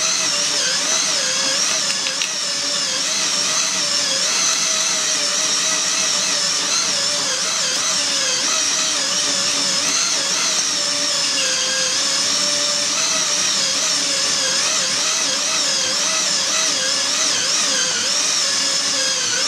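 Cordless drill running steadily as it turns a cast-metal hand grinder that is grinding cocoa nibs and sugar into chocolate paste. The whine holds at one speed, its pitch wavering slightly as the load on the grinder changes.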